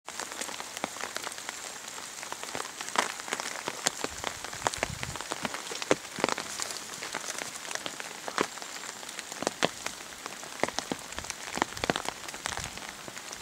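Steady rain falling onto a lake's surface, with frequent sharp pats of single drops landing close by at irregular intervals.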